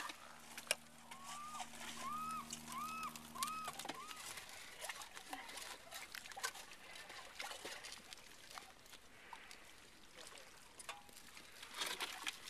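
Wet sand and seawater being scooped and scraped by hand inside a metal can sunk in a tide flat: scattered clicks, scrapes and trickling while digging out a geoduck. From about a second to four seconds in, five short rising-and-falling calls repeat about every half second.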